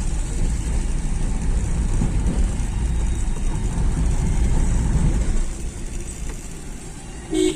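Road vehicle driving along, a steady low rumble of engine and tyres, with a short higher-pitched tone near the end.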